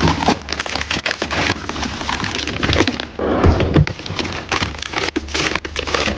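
Dense crackling and crinkling of packaging or loose items being handled, with many small clicks and a thicker burst of crackle about three seconds in.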